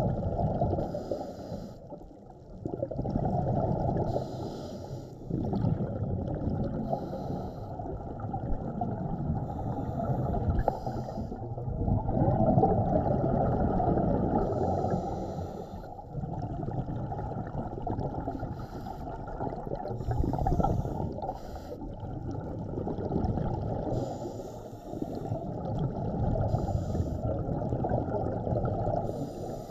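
Scuba divers breathing through their regulators underwater. A short hiss comes on each inhale, every three to four seconds, and a bubbling gurgle follows on each exhale, all muffled by the water.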